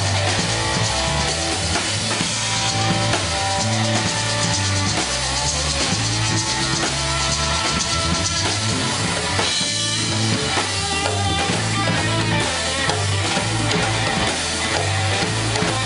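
Live instrumental band playing: electric guitar lines over a repeating electric bass line, drum kit and congas.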